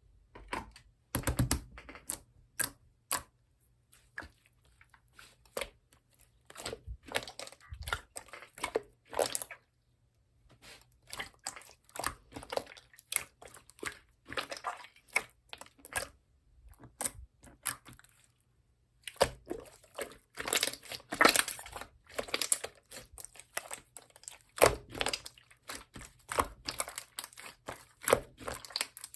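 Slime being squeezed, pressed and stretched by hand, giving irregular clusters of sharp pops, clicks and crackles, with brief pauses about ten seconds in and again near two-thirds through.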